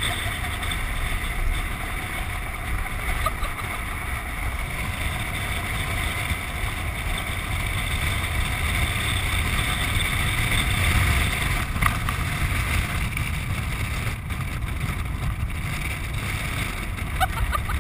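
Land sailer rolling across a hard dry lake bed under sail: a steady low rumble of the wheels and wind on the mounted camera, with a constant hiss above it.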